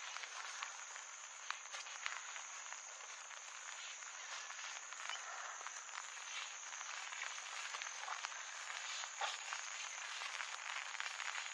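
A chorus of frogs calling from the wetland, a dense steady mass of croaks with many scattered short clicks.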